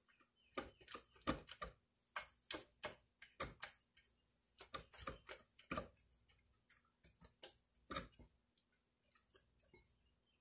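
Spatula stirring a thick bean-and-flour burger mixture inside a glass blender jar, knocking and scraping against the glass in irregular light clicks, two or three a second, thinning out and growing fainter near the end.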